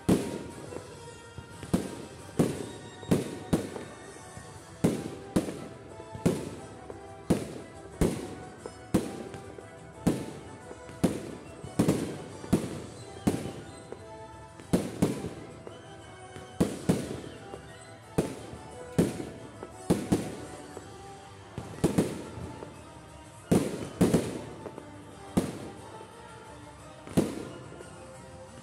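Fireworks display: aerial shells and comets going off in quick succession, roughly one or two sharp bangs a second, each with a short echoing tail, with music playing underneath.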